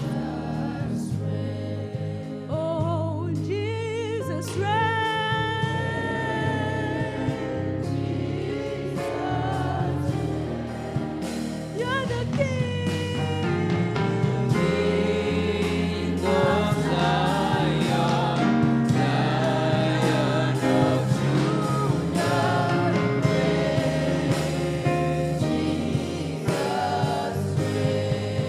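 Gospel worship song: singing over a band with sustained bass notes and a steady drum beat.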